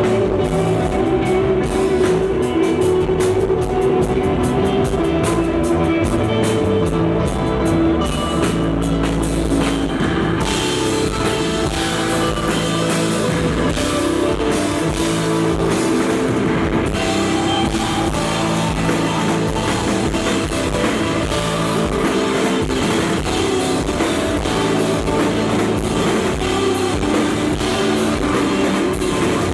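Live rock band playing an instrumental passage on guitar and drum kit. The sound grows brighter and fuller about ten seconds in.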